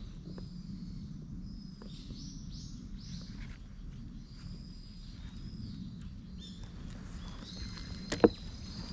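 Birds calling over a low, steady outdoor rumble, with a single sharp knock about eight seconds in.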